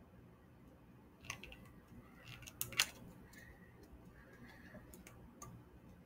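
Faint scattered clicks and crinkles of a small wrapper being handled and opened by hand, with a sharper double click a little under three seconds in.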